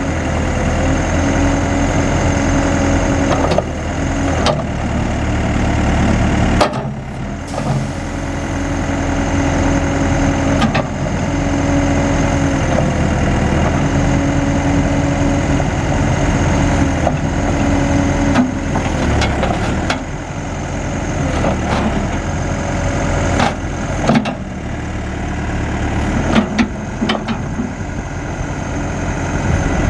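Case 580 Super M Series 2 backhoe's diesel engine running steadily, with a whine that comes and goes every few seconds and a few sharp knocks.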